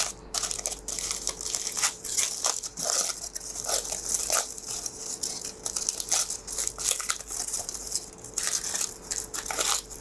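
Aluminium foil crinkling and crackling as hands unfold a crumpled foil-wrapped food packet: a continuous run of irregular rustles.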